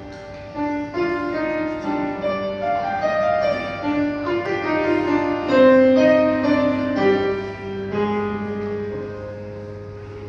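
Grand piano playing chords, a new chord struck about once a second, over a steady low hum.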